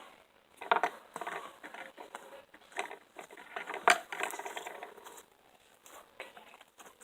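Homemade clear slime being squeezed and poked by hand close to the microphone for ASMR: irregular wet squishes and small crackling pops, with one sharper click about four seconds in.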